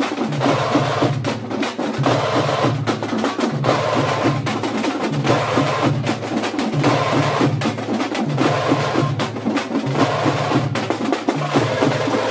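A group of tamate (thamate) frame drums beaten with sticks in a fast, dense, driving rhythm, with a low tone pulsing about once a second under the strokes.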